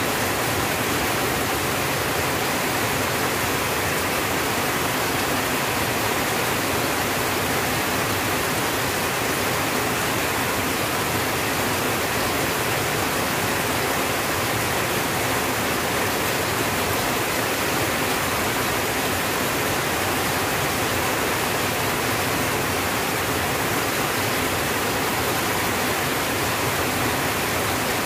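Rain falling steadily on a tin roof: an even, unbroken hiss with no single drops standing out.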